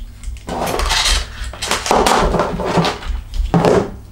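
A battery charger's cable and metal battery clamps being handled, clinking and rattling in three bursts.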